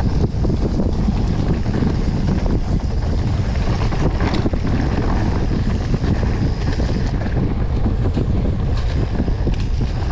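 Wind buffeting the microphone of a mountain bike riding downhill, over the steady rumble of the tyres and bike on a rough dirt trail, with a few sharper clicks.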